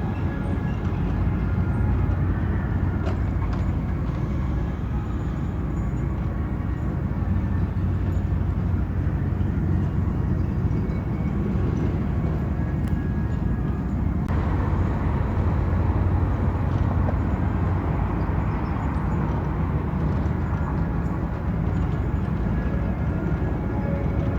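Diesel engines of a KiHa 185-series railcar sightseeing train running with a steady low drone. About fourteen seconds in the sound turns harsher and louder in its upper part.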